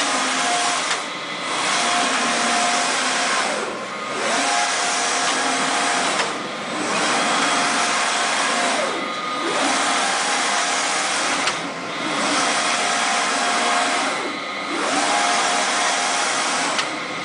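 Matan Barak wide-format printer's print carriage shuttling back and forth along its rail: a steady whirring mechanical noise with a motor whine on each pass. The whine rises as the carriage speeds up and falls as it slows, and the noise dips briefly each time the carriage reverses, about every two and a half seconds.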